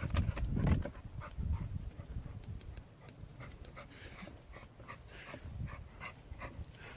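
Dogs hunting a chipmunk at close range: a few heavy thuds in the first second, then a quick run of short, sharp sounds.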